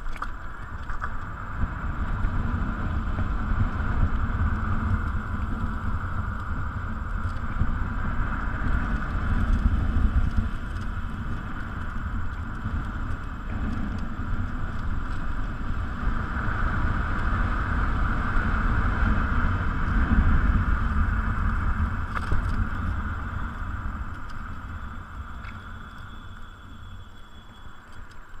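Wind rushing over the microphone and road noise from an electric scooter travelling along a road at speed, easing off over the last few seconds as it slows.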